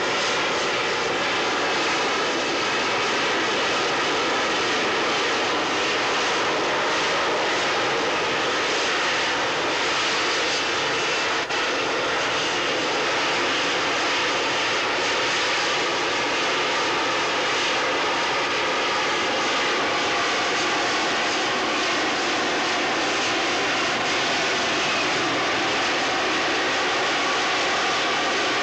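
Harrier jump jet's Rolls-Royce Pegasus turbofan running in a hover, a steady, loud jet noise with a whine of several held tones.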